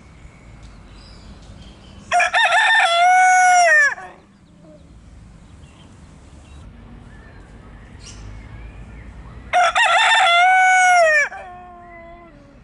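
Rooster crowing twice, each crow about two seconds long and ending on a falling note.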